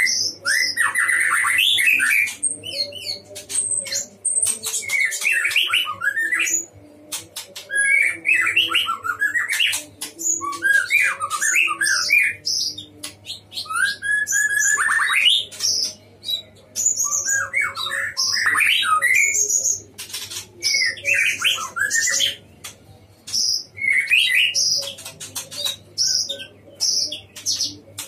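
White-rumped shama (murai batu) singing vigorously, short varied phrases of sweeping whistles and rapid trills every second or two, with sharp clicks in between.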